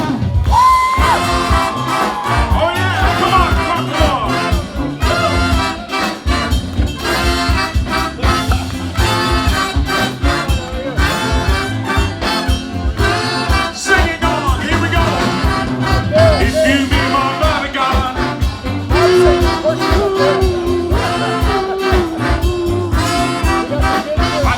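Upbeat band music with a brass horn section over a steady drum beat.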